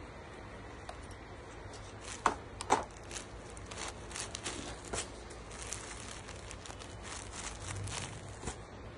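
Folded silk sarees rustling and crinkling as they are handled and flipped over, with scattered small clicks and two sharp knocks a little after two seconds in.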